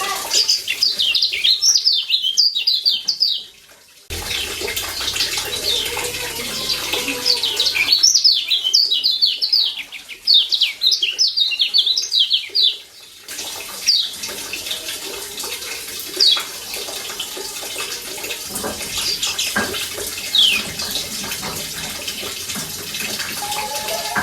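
A Lombok yellow white-eye (kecial kuning, a Zosterops white-eye) giving its sharp 'ciak' chirping calls. Two fast runs of high, falling chirps are followed by sparse single chirps, over a steady hiss.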